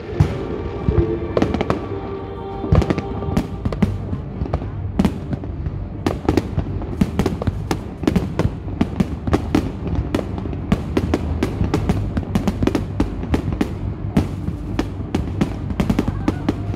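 Fireworks display: aerial shells bursting in rapid, irregular bangs and crackles, coming thicker and faster after about six seconds.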